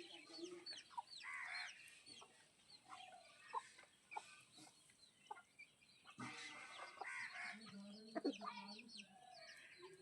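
Chickens clucking, with many short overlapping calls and chirps, busiest a little past the middle.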